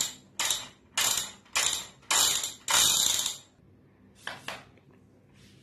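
Plastic toy gun being worked: about eight short rasping mechanical bursts, two longer ones in the middle, then a quick double rasp about four seconds in.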